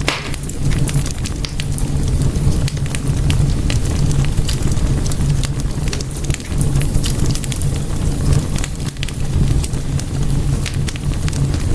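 Wood fire burning in a fireplace: a steady low rumble of flames with many irregular sharp crackles and pops.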